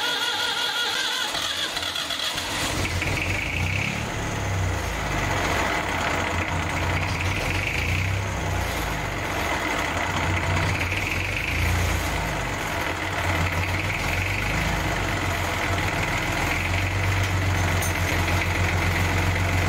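A Fordson Dexta tractor engine being cranked by its new solenoid-mounted starter motor. It catches after about two and a half seconds and keeps running.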